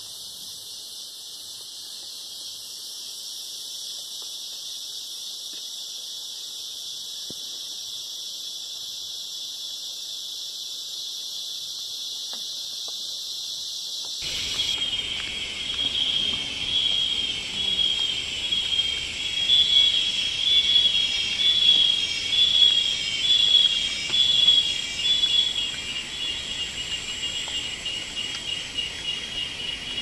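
A steady, high-pitched drone of forest insects. About halfway through, it gives way to a louder pulsing insect chorus that swells and fades roughly once a second.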